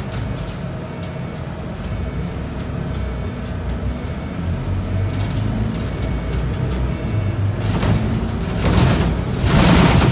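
Scania DC9 nine-litre six-cylinder diesel of a Scania K94UB bus running under way, heard from inside the cabin. Near the end there are louder bursts of hiss over the engine.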